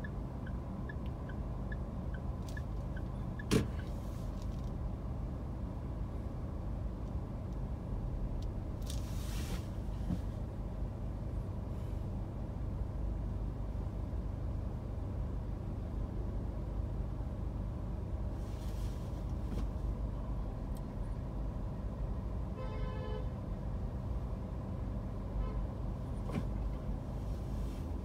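Steady low rumble of a car idling in stopped city traffic, heard from inside the cabin. A sharp click comes about three and a half seconds in. Two brief hisses follow later, and a short rapid buzzing sounds near the end.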